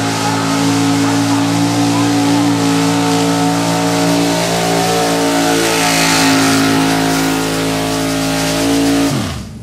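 Gas modified pulling truck's big-block V8 held at full throttle at a steady high rev while dragging the weight sled. Near the end the revs drop sharply as the throttle is let off.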